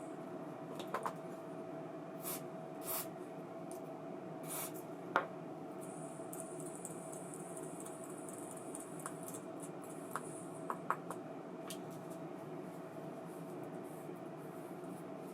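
Small handling sounds from work on an ABU Ambassadeur 2500C baitcasting reel: a few light clicks and several brief hisses over a steady low hum.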